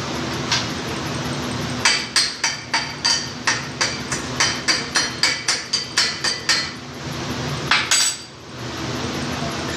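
Hammer striking a steel tube clamped in a bench vise: one blow, then a quick run of about fifteen ringing metallic strikes at three to four a second, and two more near the end.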